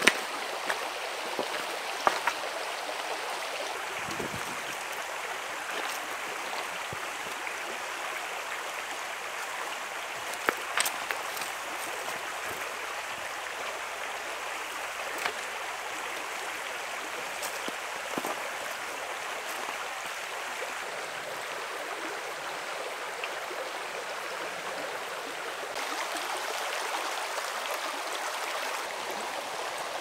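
Shallow river flowing steadily over a pebble bed, a continuous rushing. A few short sharp knocks and clicks break through it, the loudest at the very start, about two seconds in and about a third of the way through.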